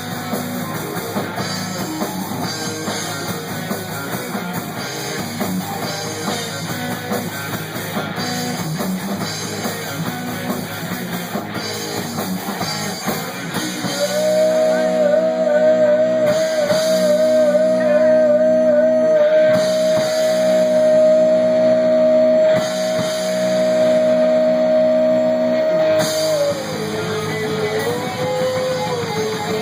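Rock music with guitar and drum kit. About halfway through, a single note is held with vibrato for some twelve seconds, then slides down in pitch.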